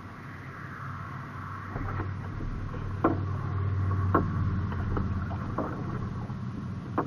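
Kayak being paddled: water swishing with sharp, irregular knocks, likely the paddle striking the water or the hull, over a steady low rumble of wind on the microphone.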